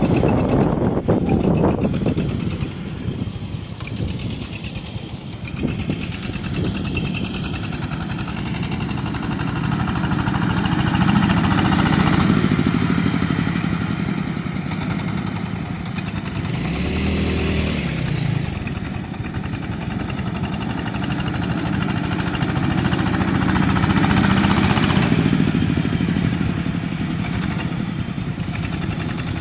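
Engine of a corn-shelling machine running continuously, its speed and load rising and falling, with a brief drop in engine pitch about two-thirds of the way through.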